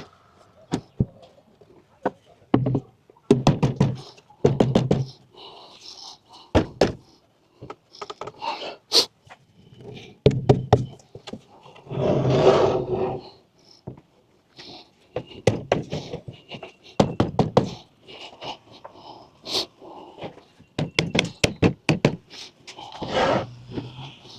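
Irregular knocks, clicks and thunks of hard parts being handled and fitted, with a few short stretches of a low voice.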